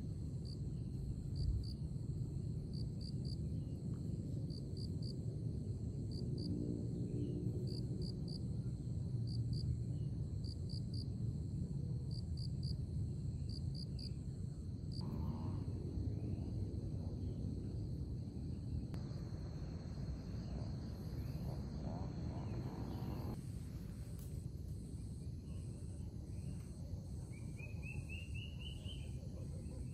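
Crickets chirping in short trills of two or three pulses every second or so over a low steady rumble; the chirping stops about halfway through. A brief rising chirp comes near the end.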